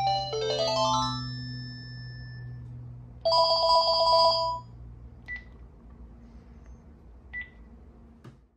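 Panasonic KX-TGA402 cordless phone handset playing its ringtones. A quick run of electronic melody notes ends about a second in. About three seconds in comes a one-second burst of a warbling two-tone electronic ring. Two short, faint beeps follow, a couple of seconds apart.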